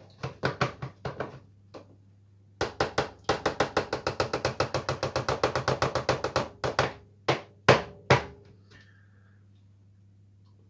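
Spoon stirring melted chocolate in a metal bowl, clicking against the sides in quick, even strokes of about six a second, then three louder knocks near the end.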